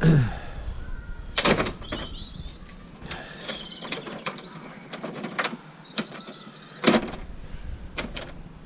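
Scrap copper cable being handled and stripped: a few sharp knocks and clanks, with squeaky scraping and sliding between them.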